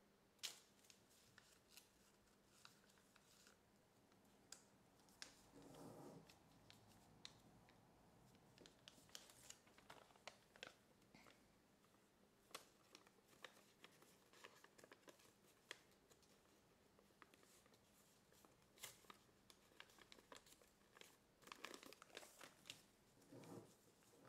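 Faint crinkling and crisp clicks of stiff kraft paper being folded and creased by hand, with a couple of longer rubbing sounds of the paper sliding, about six seconds in and near the end.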